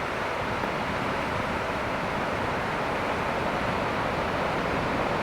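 Ocean surf breaking in a steady, even wash of noise, with wind buffeting the microphone.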